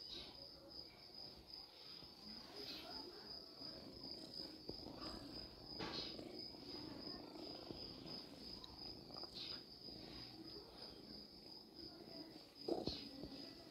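A steady, high-pitched, pulsing insect trill runs throughout, over faint rustling and soft clicks, with a sharper knock near the end.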